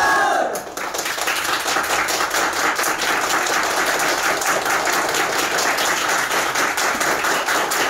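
A group of people clapping together in steady, dense applause, which takes over from the tail of a loud group shout in the first half second.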